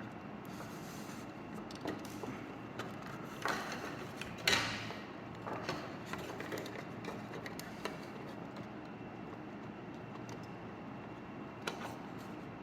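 Scattered light clicks and knocks from handling the opened plastic housing of a garden water timer, with one louder scrape about four and a half seconds in.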